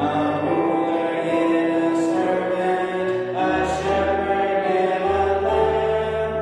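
A hymn sung by a man at a microphone with grand piano accompaniment: long held vocal notes over piano chords, the bass shifting a few times.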